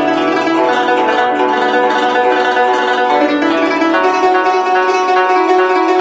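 Guzheng played fast with both hands: a dense stream of plucked, ringing notes over several strings at once.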